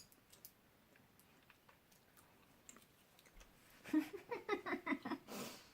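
Faint chewing of chewy Airheads taffy, with soft mouth clicks, then a short burst of voice about four seconds in.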